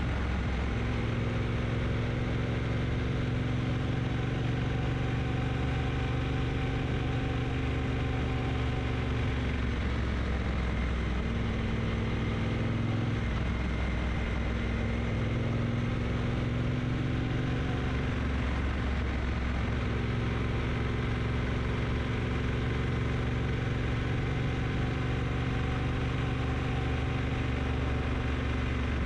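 Triumph T120 motorcycle's parallel-twin engine running with a steady note that dips in pitch about halfway through and then picks up again.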